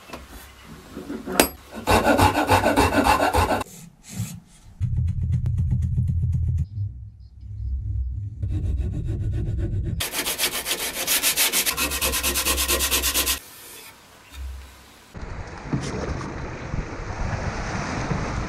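A metal hand file rasping across the wooden grip of a canoe paddle in quick, even strokes, among other stretches of rubbing and scraping on the wood. Near the end, water rushing and splashing past a paddled canoe.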